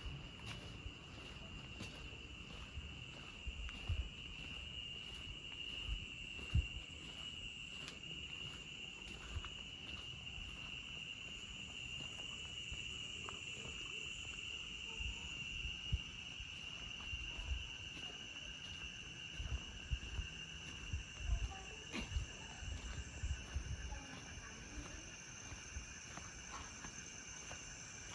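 Night insects, crickets, trilling steadily and without a break, with a second, higher-pitched insect drone above them. Under it come irregular soft low thumps, the footfalls and handling of a slow walk.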